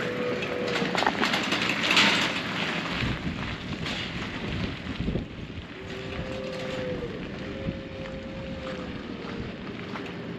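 QuietKat Ranger electric bike being ridden, its motor giving a faint whine that rises and falls a little, over tyre noise and wind on the microphone.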